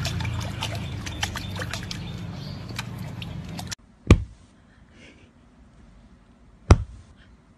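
Puppy pawing and lapping at water in a stone basin: many small splashes and drips. This cuts off suddenly about four seconds in, and two short, loud, sharp sounds follow a little over two seconds apart from a puppy lying on its back.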